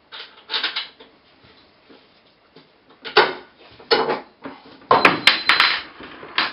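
Knocks and clatter of wooden parts being handled while a hand-made wooden market cart is taken apart. There are loud hits about three and four seconds in, then a run of them with a few sharp metallic clinks about five seconds in.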